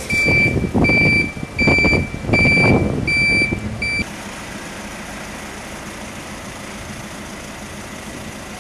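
A heavy vehicle's reversing alarm beeping at a steady pace, about one beep every 0.7 s, over a low rumble. It cuts off abruptly about four seconds in, leaving a steady low background hiss.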